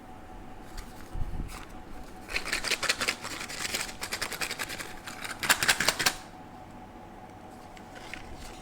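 A packet of slate pencils being unboxed and handled: two bursts of rapid, dense clicking and crackling, the first about two seconds in and the second, louder one around five to six seconds, with scattered single ticks between, over a faint steady hum.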